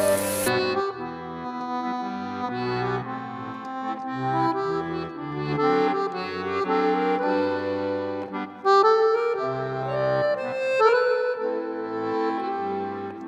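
Instrumental background music: a melody over held bass notes that change every second or so, with a reedy, accordion-like tone.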